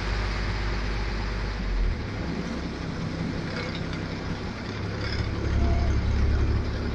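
Bus engine running with a steady low rumble that grows louder about five seconds in.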